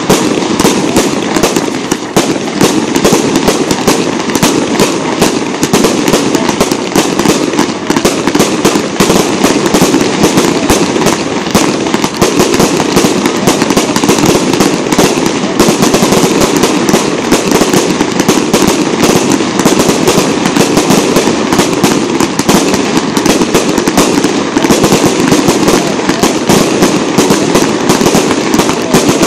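Aerial fireworks launching and bursting in a nonstop barrage: a dense, steady stream of sharp bangs and crackles with no pause.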